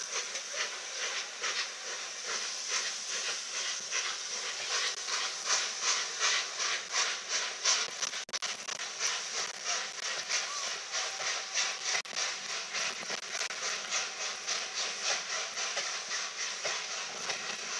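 Peppercorn A1 steam locomotive 60163 Tornado, a three-cylinder 4-6-2, pulling away with its train: a rapid, regular beat of exhaust chuffs over a steady hiss of steam.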